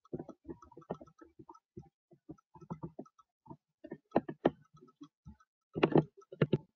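A quick, irregular run of soft clicks and taps, with a louder cluster about six seconds in.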